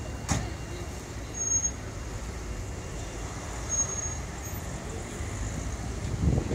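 City street traffic: a steady low rumble of cars and engines, with a sharp click just after the start and two brief high squeaks.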